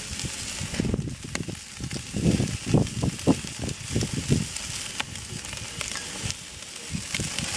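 Chicken thighs sizzling on the hot grate of a Weber kettle charcoal grill: a steady hiss with frequent sharp crackles and pops. Irregular low rumbling bursts come through the middle.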